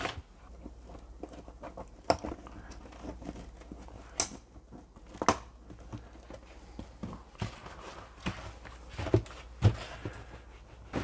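Styrofoam cooler boxes being handled and strapped down: scattered light knocks, scrapes and clicks at irregular times, over a faint steady low hum.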